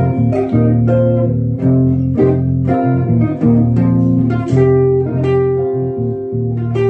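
Gibson ES-330 hollow-body electric guitar playing jazz, plucked melody notes and chords over sustained low bass notes layered with a loop pedal.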